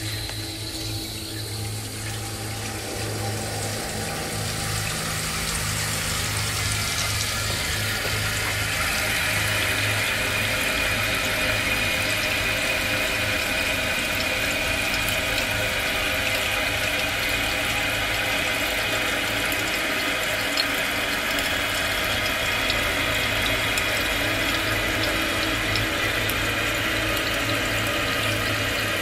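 New toilet tank filling through its fill valve after the supply valve is opened: water hissing and splashing into the ceramic tank, growing louder over the first several seconds and then running steadily.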